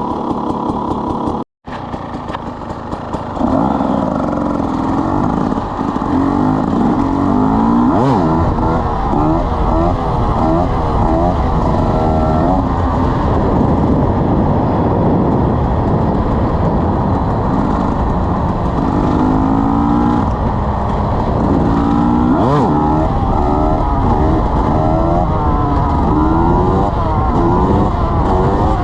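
KTM 300 EXC Six Days single-cylinder two-stroke enduro engine running steadily, cutting out briefly about a second and a half in, then revving up and down repeatedly with its pitch rising and falling.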